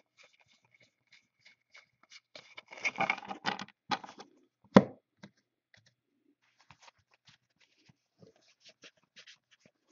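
A stack of trading cards being flicked through by hand: a run of small clicks and scrapes, busiest a few seconds in, with one sharp knock about halfway through.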